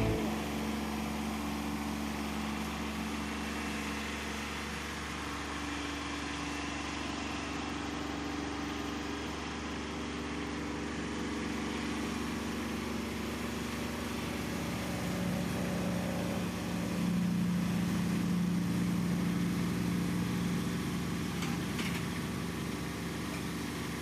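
Kubota B2601 compact tractor's diesel engine running steadily, growing louder about two-thirds of the way through as it works harder.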